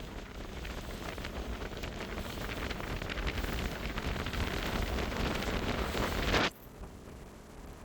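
Wind buffeting the microphone: a steady rushing noise with crackly gusts that builds a little and then cuts off suddenly about six and a half seconds in.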